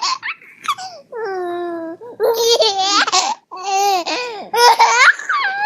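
A baby vocalising: about half a dozen high-pitched coos and squeals, each a second or less, with the pitch sliding up and down.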